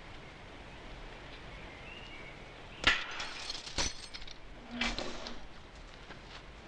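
Two sharp cracks about a second apart, then a softer knock, over a quiet background.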